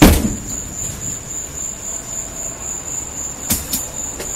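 Ax blows striking the body of a Ford Thunderbird: one heavy strike with a ringing tail at the start, then two lighter hits in quick succession about three and a half seconds in.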